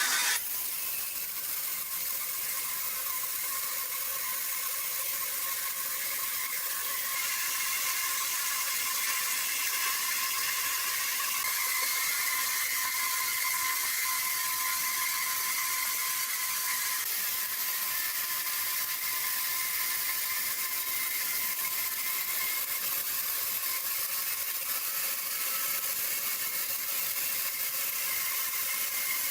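Steady high-pitched mechanical whir of a running sawmill machine, with a constant tone over a hiss and no strokes or pauses.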